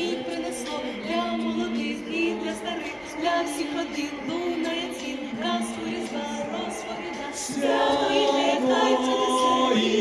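Choir singing a cappella, the voices growing fuller and louder about three-quarters of the way in.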